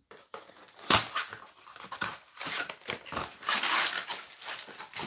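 A baseball card blaster box being torn open by hand: irregular crinkling and ripping of its wrapping and cardboard, with a sharp snap about a second in.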